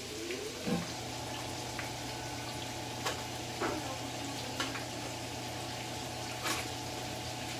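Pork and onion sizzling steadily in a frying pan, with several sharp clicks, about five, from the knob igniter of a portable butane stove being turned to light it. A steady low hum starts about a second in.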